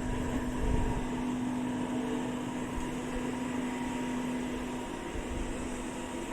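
Steady machine hum with a low drone that stops about five seconds in.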